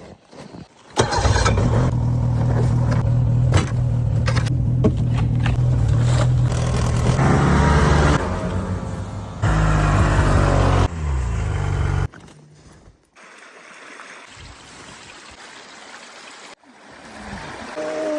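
An engine running loudly with a low, steady drone, changing abruptly a few times, then cutting off about twelve seconds in, leaving a much quieter background.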